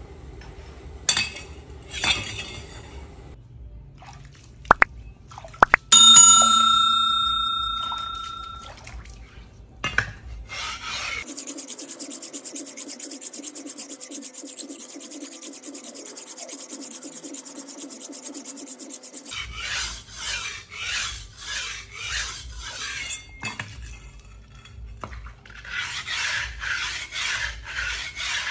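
A steel knife blade being worked by hand: a sharp metallic strike about six seconds in that rings clearly for a couple of seconds, then steady scraping and, from about two-thirds of the way through, rhythmic back-and-forth strokes at about two a second, as of the blade being sharpened on a stone.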